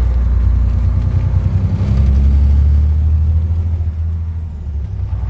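Truck engine and road noise heard from inside the cab while driving: a loud, deep, steady drone that swells briefly about halfway through and eases a little near the end.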